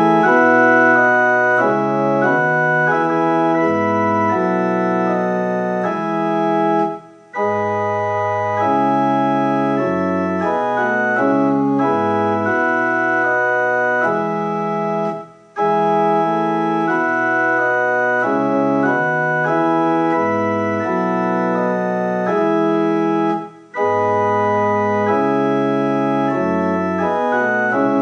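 Organ playing slow, sustained chords in phrases of about eight seconds, each cut off by a short gap before the next begins.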